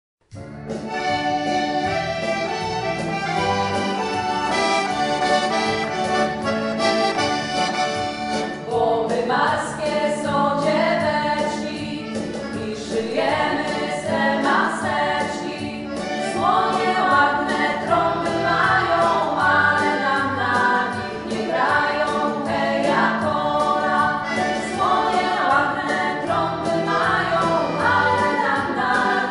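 Background music: an instrumental opening of held chords, then singing from about nine seconds in.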